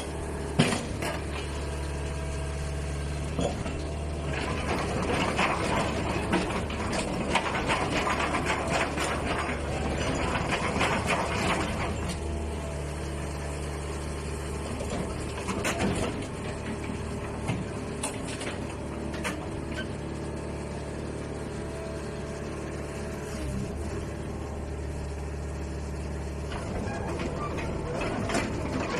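Hitachi ZX120-6 excavator's diesel engine running steadily, with the hydraulics working the boom and tracks. It grows louder and harsher about four seconds in and settles back after about twelve seconds, with a few short metallic knocks scattered through.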